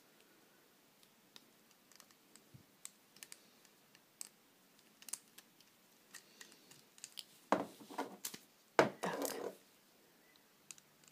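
Small plastic clicks and rubbery rustling of loom bands being worked off the pegs of a plastic rubber-band loom, with a couple of louder clusters of clicks about two-thirds of the way in.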